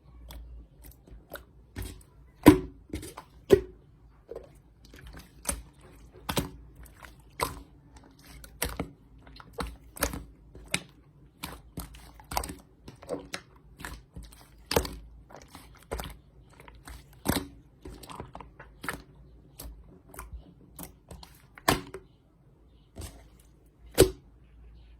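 Hands pressing and squeezing a glossy jam-type slime, giving sharp, irregular clicking pops about once or twice a second, some much louder than others.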